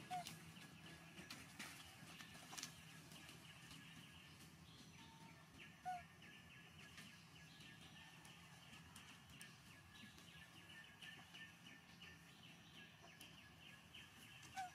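Faint outdoor ambience: a steady high chirring like insects in the background, with three short chirps spread through it.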